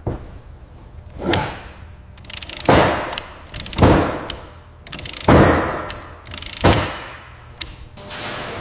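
Factory machinery clanking in a regular cycle: about six sharp mechanical knocks, roughly one every second and a half, each followed by a short hissing tail, with lighter clicks between them.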